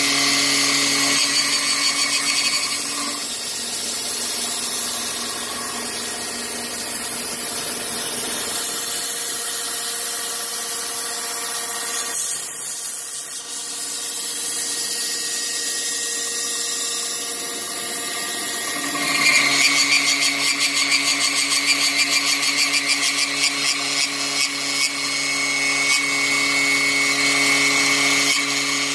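Power tool motor running steadily with a cutter milling material. It eases off a few seconds in, and from about two-thirds of the way through it grows louder with a fast, even pulsing as the cutter works the material.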